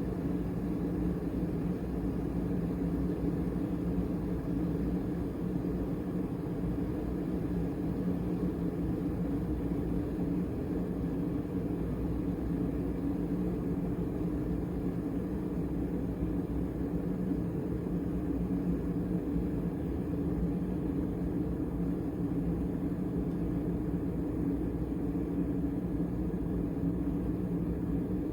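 Mecity glass-and-stainless electric kettle heating a full pot of water, giving a steady low rumble as it works toward the boil.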